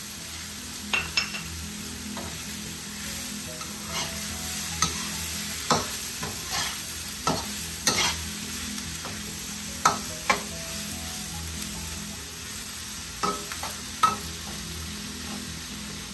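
Slotted metal spatula scraping and clacking against a wok as chicken and vegetables are tossed, over a steady sizzling hiss of frying. The clacks come irregularly, about a dozen in all.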